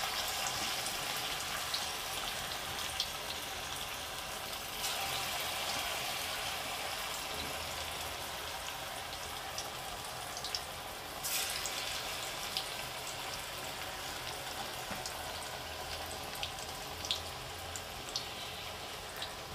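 Cabbage Manchurian balls deep-frying in hot oil in a kadai: a steady sizzle with scattered small pops, louder for several seconds in the middle.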